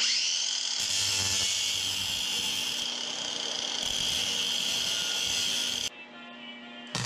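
Handheld cordless power tool working a steel rod, spinning up to a steady high whine at the start and cutting off suddenly about six seconds in.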